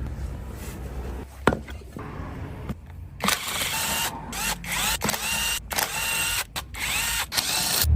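Power driver unscrewing the bolts of an electric tricycle's differential housing, whining in several short bursts from about three seconds in, after a low hum and a single click.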